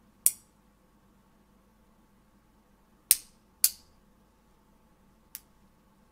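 5 mm magnetic balls snapping together: four sharp metallic clicks, two of them about half a second apart in the middle, and the last one fainter.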